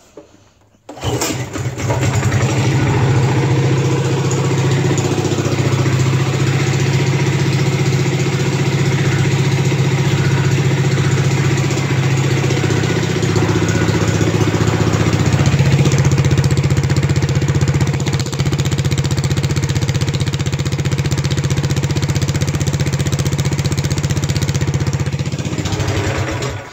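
Minibike's small single-cylinder engine starting about a second in and idling steadily through a homemade bent black-iron pipe header exhaust, then shut off just before the end.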